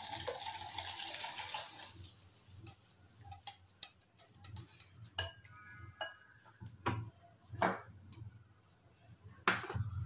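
A liquid being poured and scraped with a spoon from a steel pot into a glass bowl for about two seconds. Then a wire whisk clinks irregularly against the glass bowl as the mixture is whisked, with the loudest clink near the end.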